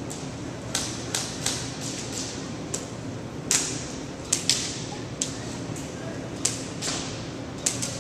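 Airsoft guns firing scattered single shots: a dozen or so sharp pops at irregular intervals, with the loudest cluster in the middle.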